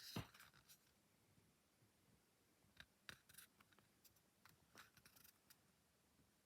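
Faint handling of a plastic DVD case: a sharp click with a dull knock at the start, then scattered light clicks and scrapes.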